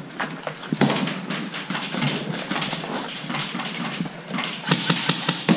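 Footsteps crunching over a floor strewn with broken glass and debris, with irregular sharp knocks.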